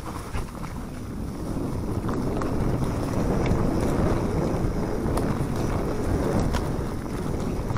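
Mountain bike descending a dirt and leaf-litter trail: wind buffeting the handlebar-mounted camera's microphone over the rumble of the tyres on the ground, with scattered clicks and rattles from the bike over bumps. It gets louder about two seconds in as speed builds.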